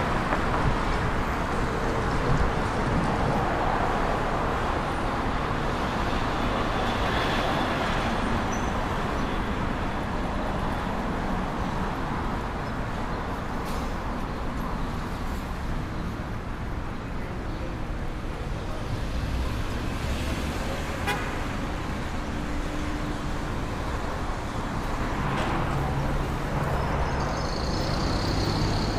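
City street traffic: a steady wash of cars and other vehicles passing, with a few brief horn toots.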